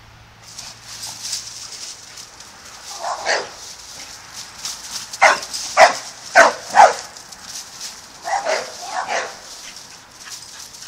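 Pit bull barking in short single barks, about eight in all, the loudest four in quick succession around the middle.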